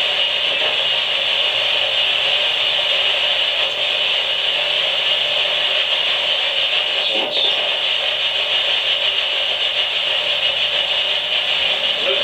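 Spirit box scanning through radio static: a steady, loud hiss.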